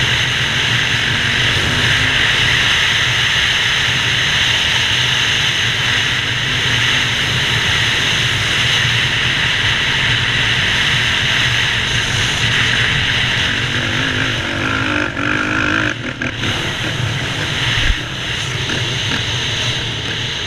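Yamaha WR450F dirt bike's single-cylinder four-stroke engine running under way across sand, mixed with steady wind rush on the helmet-mounted microphone. The level dips briefly past the three-quarter mark, and there is a single low thump near the end.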